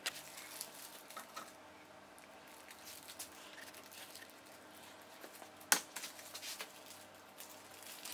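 Faint workshop handling noises: scattered light clicks and rustles of tools and small parts being picked up and set down, with one sharper click about two-thirds of the way through.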